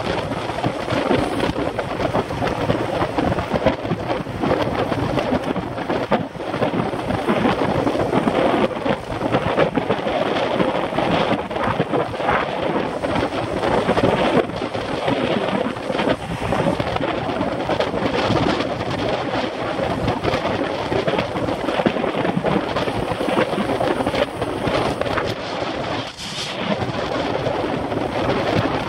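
Wind rushing over the microphone of a camera on a road bicycle moving at about 27 mph: a loud, steady, gusty rush of noise with no let-up.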